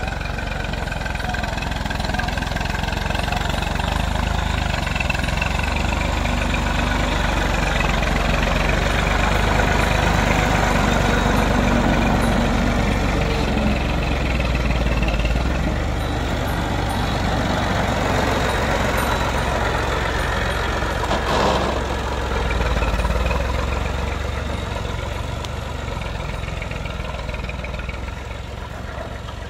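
Massey Ferguson 240 tractor's three-cylinder diesel engine running steadily while it pushes sand with a front blade, swelling in the middle and easing off near the end. A single sharp knock is heard about two-thirds of the way through.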